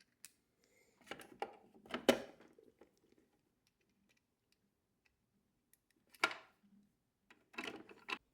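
Scattered clicks, taps and light rattles of hand work on a refrigerator icemaker: screws and plastic parts being handled, coming in small groups with quiet gaps between.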